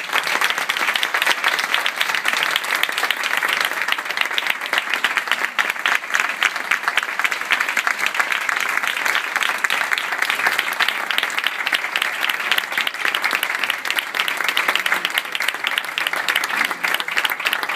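Audience applauding, starting suddenly and keeping up steadily as a dense stream of hand claps.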